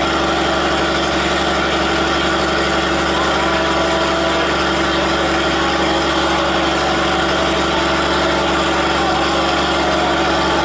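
Diesel-electric locomotive idling steadily, a constant engine drone that neither rises nor falls.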